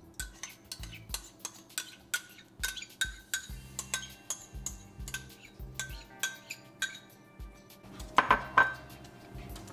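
A metal spoon clinking and scraping against white ceramic bowls while yogurt is spooned out of a small bowl onto chicken and stirred in: a quick run of clicks with short ringing tones, two or three a second, then a few louder clinks about eight seconds in.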